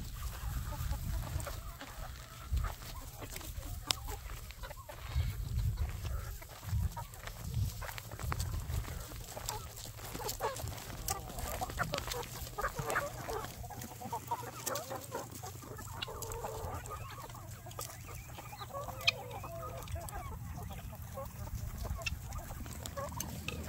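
A mixed flock of free-range chickens and roosters clucking on and off.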